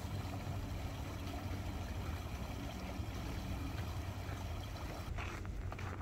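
Meltwater flowing over rocks in a shallow, partly frozen mountain stream: a steady rushing. A few footsteps on a dirt path come in near the end.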